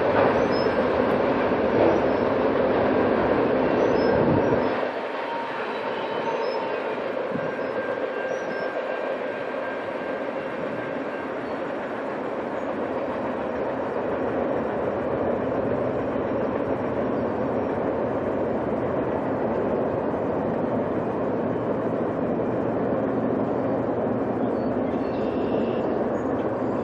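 Rolling noise of a freight train's rear cars, autoracks at the tail, moving away on jointed rail. The deep part of the sound drops off suddenly about five seconds in, leaving a steadier, quieter rolling noise as the last cars recede.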